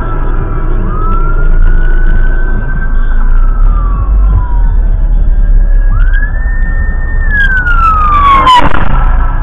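Police car siren wailing, its pitch slowly rising and falling in long sweeps, over a steady low rumble of road and engine noise.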